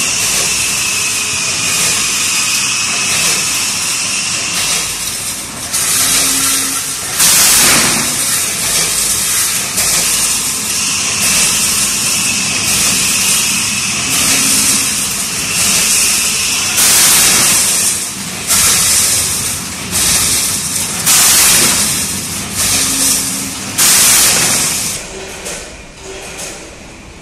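Metal springs clattering through a 14-head multihead weigher: a continuous hissy metallic rattle with louder clattering surges every second or two, growing quieter near the end.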